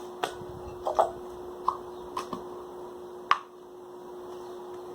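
Shaving-foam slime being squeezed and kneaded in the hands, giving a handful of short, wet clicks and squelches, the loudest a little after three seconds, then quieter.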